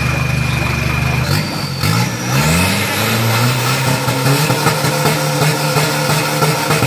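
1.9 Ddi turbodiesel drag pickup engine revving on the start line: held at steady revs, then about two seconds in the revs drop and climb again with a rising turbo whistle, and are held high to the end.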